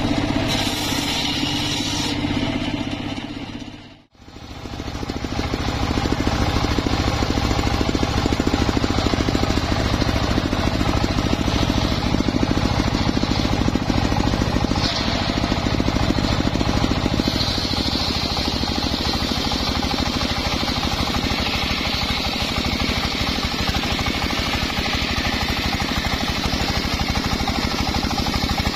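Homemade engine-driven circular sawbench running and ripping mahogany, its engine heard as a steady rapid pulse, with a higher whine from the blade as it cuts. The sound fades out briefly about four seconds in, then comes back at full level.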